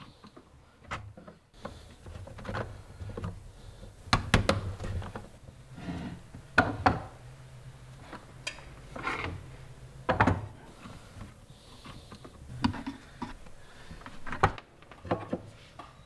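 Irregular clicks, knocks and scraping of hard parts being handled and fitted together, with the sharpest knocks about four, seven, ten and fourteen seconds in.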